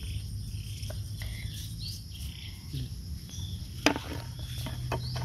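Insects chirping in short high calls over a steady low background hum, with one sharp click about four seconds in.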